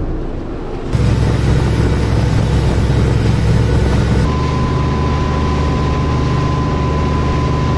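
Boat engine running steadily, with wind and water noise. The sound changes abruptly about a second in and again about four seconds in, and a thin steady tone runs through the last part.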